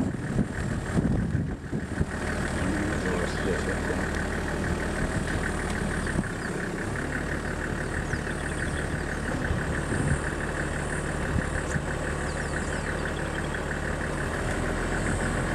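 A vehicle engine idling steadily, its low note shifting slightly about halfway through, with a fast, even pulsing buzz over it.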